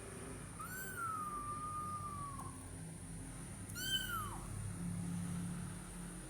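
Kitten meowing twice: a long, high meow that slowly falls in pitch, then about a second and a half later a shorter meow that drops off quickly.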